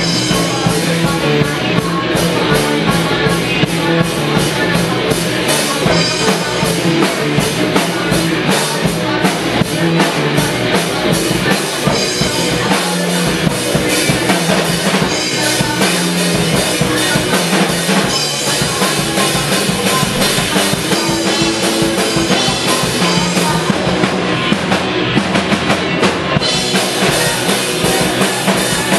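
Live rock band playing loud, driven by a drum kit keeping a steady kick-and-snare beat.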